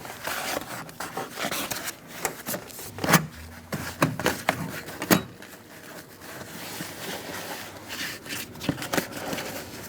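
Hands working a lock cable and plastic parts inside a car door: irregular scraping and rubbing with scattered clicks and knocks, the loudest about three and five seconds in.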